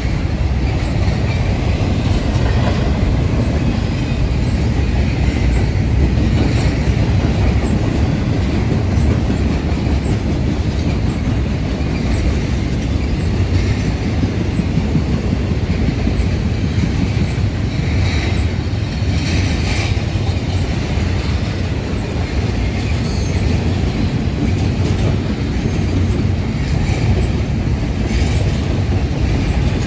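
Union Pacific intermodal freight train rolling past close by: a steady rumble of steel wheels on rail with a clickety-clack from wheels crossing rail joints, and now and then a brief wheel squeal.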